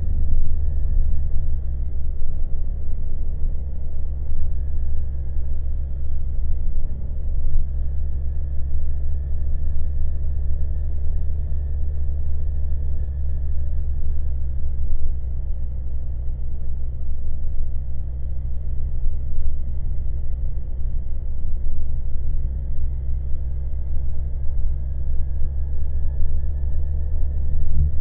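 Honda Monkey motorcycle riding at a steady cruise: a low, continuous rumble from its small single-cylinder engine and the rush of riding, with a faint thin whine that drifts gently up and down in pitch.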